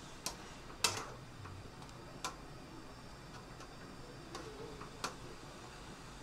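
Eating utensils clicking against a bowl or dish: a handful of short, sharp clicks at irregular intervals, the loudest a little under a second in.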